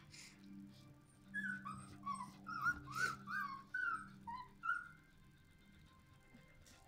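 Australian Shepherd puppy whimpering and yipping: a quick run of about ten short, high squeaks, each dropping in pitch, over some three and a half seconds.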